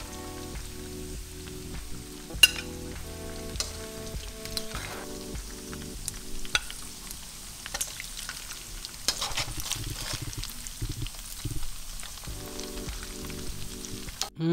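Bacon and andouille sausage frying in hot rendered fat in a wok, a steady crackling sizzle, while a spoon scrapes and clicks against the pan as the meat is lifted out. One sharp clink stands out about two and a half seconds in.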